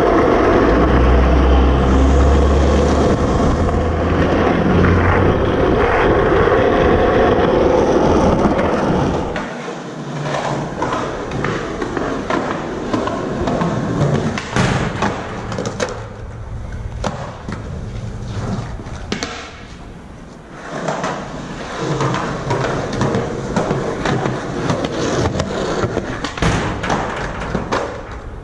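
Skateboard wheels rolling loudly on asphalt for about the first nine seconds. The roll then drops to a quieter one on concrete sidewalk, broken by many sharp clacks and thuds of the board popping, slapping and landing.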